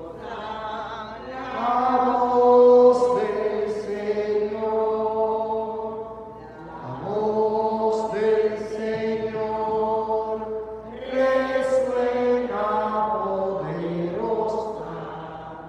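Slow chanted singing in long held notes, in three phrases, fading near the end: the sung Alleluia of the Gospel acclamation at Mass.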